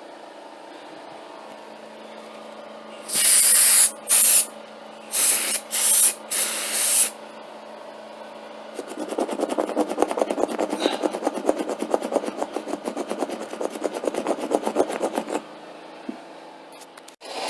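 Five short hissing sprays onto carpet, then rapid, even scrubbing strokes for several seconds, a rasping brush-on-carpet sound, as a stain is treated. A low steady hum runs underneath.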